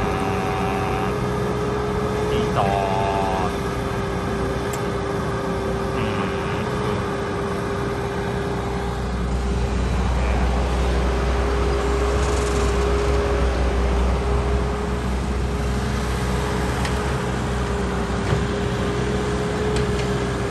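Caterpillar hydraulic excavator running while it digs: a steady diesel engine rumble with a constant whine over it. The engine pulls harder for several seconds from about nine seconds in.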